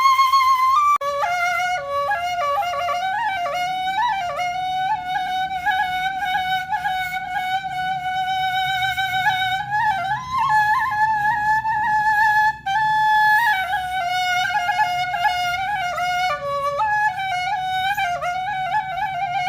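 Background music: a solo flute-like wind instrument plays a slow, ornamented melody with long held notes and vibrato, over a faint low accompaniment.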